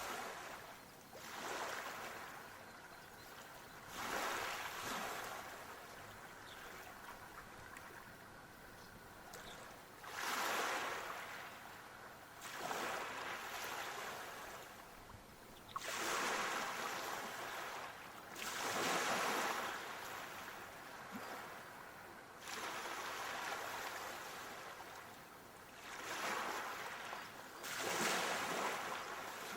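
Water noise swelling and fading every few seconds, like waves washing in on a shore, with no distinct tones or impacts.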